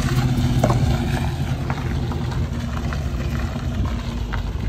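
V8 muscle car engine idling with a low, steady rumble.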